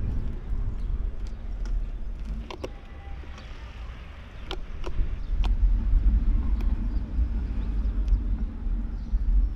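Outdoor street ambience: a loud, uneven low rumble that swells from about five seconds in, with a few scattered sharp clicks.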